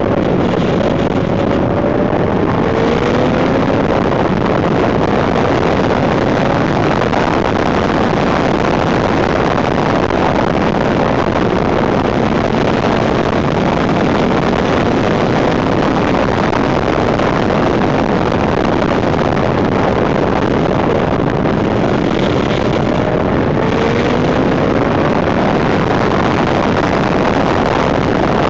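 Loud, steady wind noise buffeting a handlebar-mounted camera's microphone on a moving 1991 Suzuki GSX 750 F Katana. The bike's inline-four engine is faintly heard beneath the wind, its note rising briefly about two seconds in and again near the end.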